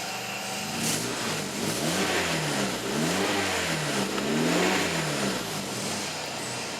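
1999 Honda Civic's 1.6-litre four-cylinder engine idling, then revved up and let fall back several times in quick succession, settling back to idle near the end.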